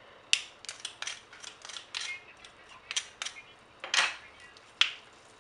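Metal garlic press being worked open and shut, giving a run of sharp, irregular metallic clicks and clacks, with a louder clack about four seconds in and another near the end.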